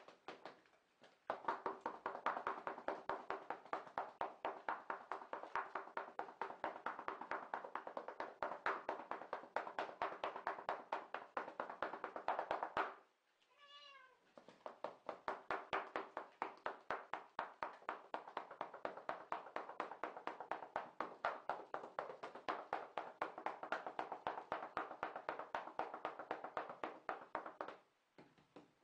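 A cat meows once, about halfway through. Before and after the meow, a loud, rapid pulsing, rattling sound runs on for long stretches.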